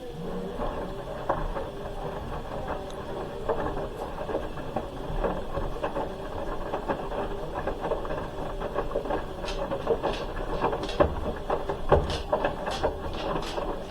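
Hoover H-wash 300 Plus washing machine mid-wash: the drum motor whines steadily as the drum turns the laundry. Scattered knocks run throughout, and a run of sharp clicks comes over the last four seconds or so.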